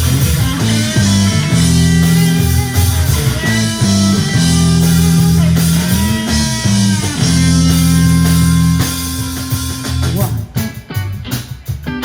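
Live rock band playing a guitar-led instrumental break over bass and drums. About ten seconds in, it turns quieter and choppier.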